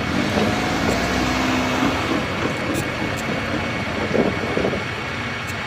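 Diesel engine of a Kyoto Tango Railway railcar running steadily, with wind buffeting the microphone and a thin steady high tone over it.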